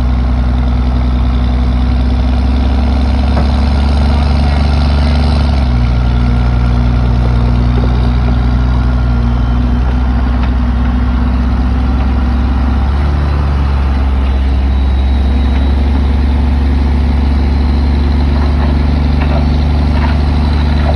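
Heavy equipment engine running close by, a loud, low steady drone whose pitch shifts slightly about five seconds in and again around the middle.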